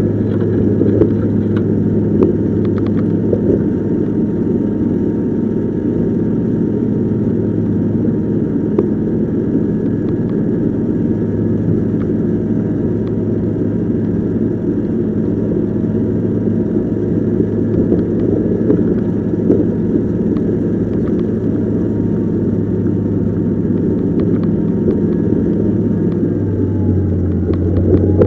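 Diesel engine of a heavy snow-clearing work machine running steadily, with a faint steady whine above it; the engine note drops slightly near the end.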